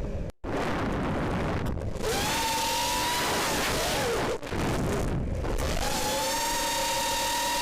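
FPV racing quadcopter in flight: a rush of wind noise, then the high whine of its brushless motors, falling in pitch about halfway through and climbing back to hold steady as the throttle changes.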